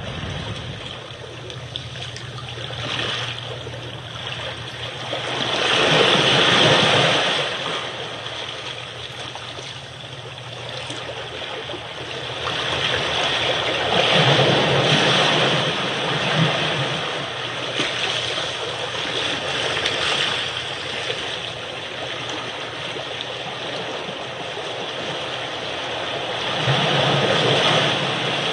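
Sea waves washing on a shore: a continuous rush of water that swells and ebbs in slow surges, strongest about six seconds in, in the middle, and near the end.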